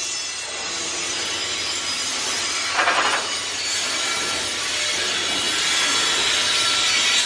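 Container flat wagons of a freight train rolling past, their steel wheels making a steady grinding hiss on the rails, with a short louder scrape about three seconds in.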